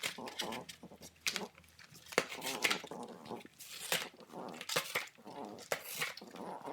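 French bulldog puppy chewing and tearing cardboard with its teeth: repeated sharp crackling rips, mixed with the puppy's own short pitched vocal noises.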